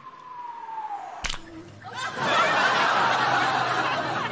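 A descending whistling tone as the golf ball falls, cut off about a second in by a sharp smack as it lands in an ice cream cone, then loud audience laughter.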